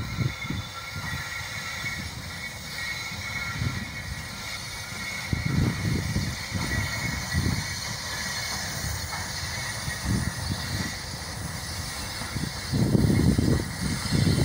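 Freight train's open gondola wagons rolling past on the rails, a steady low rumble in uneven surges that grows louder near the end.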